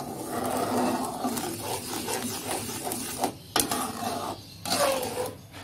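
Metal slotted spatula stirring and scraping around an aluminium pan of simmering jaggery syrup, an irregular rasping rhythm, with a sharp clack a little past halfway.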